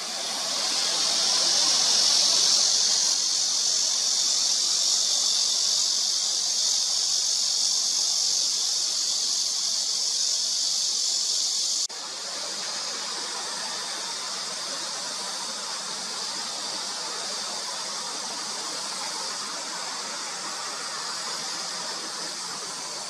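A steady high-pitched hiss, which drops suddenly to a lower level about twelve seconds in.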